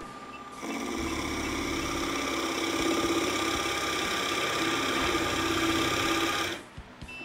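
Nova Voyager DVR drill press, with its direct-drive motor, boring a 1-1/4 inch Forstner bit into softwood: motor whine and cutting start about half a second in, run steadily, and stop abruptly near the end as the press halts itself at the set 1/4-inch depth.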